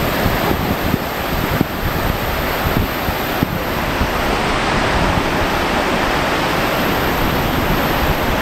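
Water pouring down the sloping face of a concrete weir into a churning pool: a loud, steady rush of falling water.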